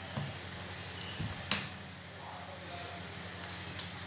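Metal spoon stirring thick dosa batter in a steel bowl, with about four sharp clicks of the spoon against the bowl, two close together about a second and a half in and two more near the end.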